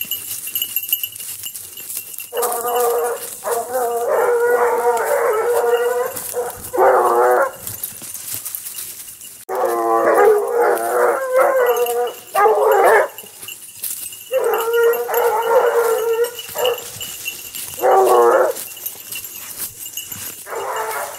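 A pack of blue-ticked basset hounds baying in several overlapping voices, in repeated bouts of a few seconds with short pauses: hounds giving tongue as they work a scent trail.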